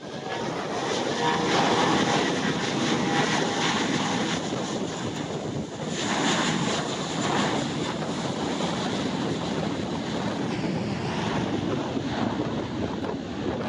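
Airbus A320-232's IAE V2500 turbofan engines running at takeoff power as the jet rolls down a wet runway: a steady jet roar with a faint engine whine in the first few seconds, mixed with the hiss of rain and wheel spray.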